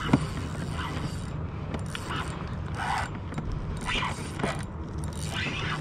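Daiwa BG3000 spinning reel working under load as a hooked bluefish is played on a bent rod: a mechanical whir with short rasping bursts roughly every second.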